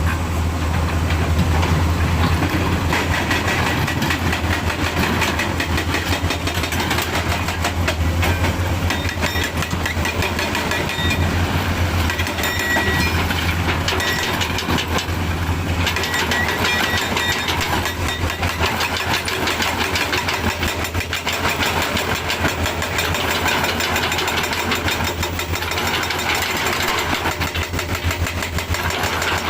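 Heavy diesel engine running steadily, with a strong low hum and a constant mechanical rattle.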